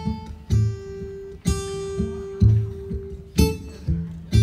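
Acoustic blues guitar playing an instrumental fill: picked single notes ringing over a low bass note struck about once a second.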